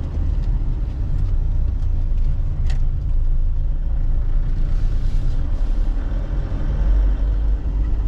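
Steady low rumble of a car's engine and tyres, heard from inside the cabin while driving. A few faint ticks come in the first three seconds, and a brief hiss about five seconds in.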